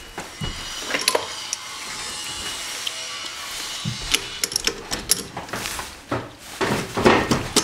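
Metal clicks and clinks of a lathe's four-jaw chuck being opened and a threaded steel rod handled in its jaws. There are a few sharp clicks about a second in, a cluster of them about four seconds in, and a louder clatter near the end.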